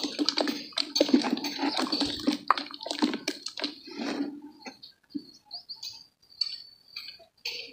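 Hands sloshing and squelching in a basin of muddy water around a soaked block of brown dirt. The wet splashing and squishing is dense for the first half, then thins to scattered wet handling sounds.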